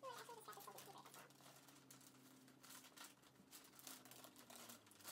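Faint crinkling and rustling of wrapping paper being handled, over a low steady hum. A brief wavering high-pitched call sounds at the very start.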